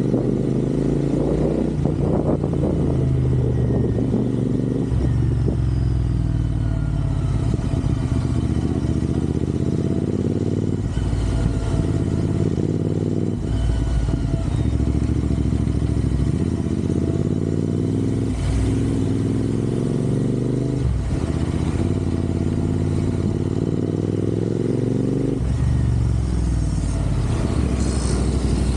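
Royal Enfield Interceptor 650's parallel-twin engine pulling the motorcycle along the road, its pitch climbing and then dropping at a gear change every few seconds, about half a dozen times.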